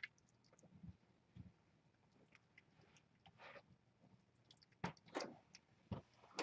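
Near silence: faint scattered rustles and soft ticks, with two sharper clicks about five and six seconds in.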